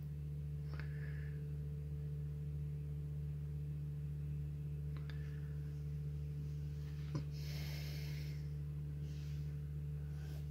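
Steady low hum of an idling engine heard from inside a car's cabin, with a few faint ticks and a brief soft hiss.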